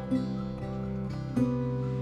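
Background music: an acoustic guitar strumming chords, with fresh strums just after the start and again about one and a half seconds in.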